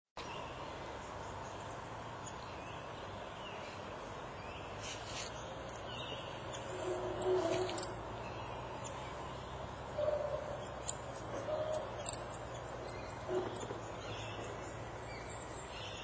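Birds calling over a steady background hiss: a few short, low-pitched calls from about seven seconds on, with faint high chirps scattered throughout.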